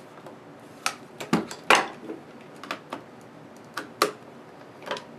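Cast plastic raygun body being flexed and pried apart by hand: a run of irregular sharp clicks and knocks, the loudest about two seconds in, as the glued body halves, softened with a heat gun, start cracking apart.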